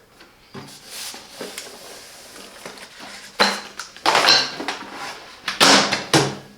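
Microwave oven door pulled open by its handle, then the packed contents inside being handled, with a few louder knocks and rattles from about three seconds in.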